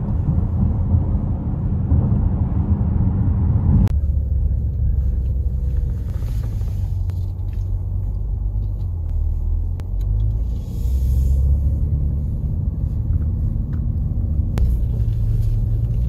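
Low, steady rumble of a car driving slowly, engine and tyre noise, with a few sharp knocks. The character of the noise changes abruptly about four seconds in.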